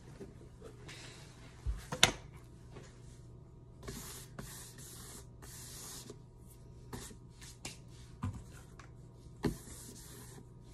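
Handling noises: rustling and hands sliding over a cardboard box lid, with a few sharp knocks as things are set down, the loudest about two seconds in.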